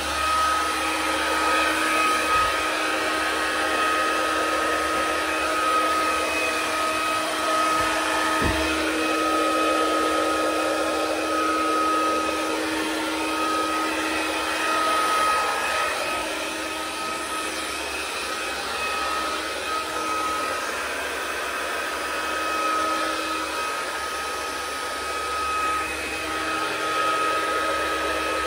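Hair dryer running steadily on the wet paint of a Dutch pour, blowing the paint across the canvas. It makes a steady rushing noise with a thin, high whine over it.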